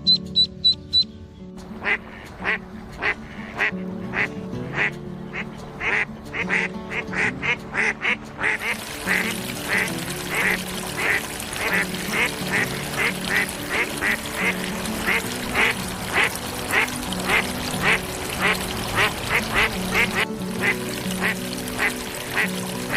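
Ducklings peeping, short high calls repeated in quick succession, over background music. A steady hiss joins about a third of the way in.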